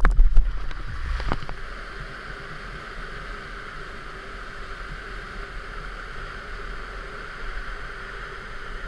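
Whitewater rapids rushing steadily. A few loud close knocks and splashes sound in the first second and a half.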